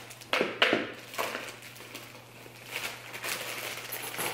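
Plastic cake-mix bag crinkling as it is handled and the mix shaken out into a mixing bowl, with a few sharp crackles in the first second and softer rustling after.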